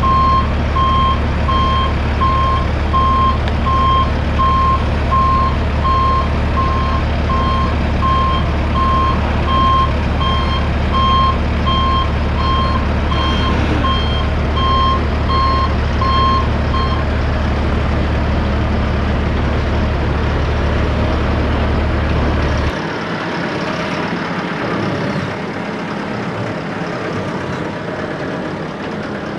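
Vehicle backup alarm beeping steadily, about one and a half beeps a second, over a low engine hum; the beeping stops a little over halfway through, and the engine hum cuts off suddenly about three-quarters of the way in.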